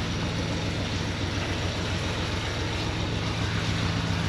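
Narrowboat engine running steadily under way, with a low, even running note.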